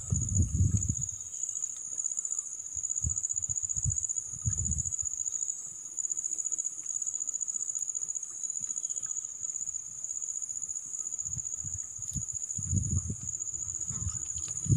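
Insects chirring in a steady, unbroken high-pitched drone, with a few low thumps and rumbles close by now and then.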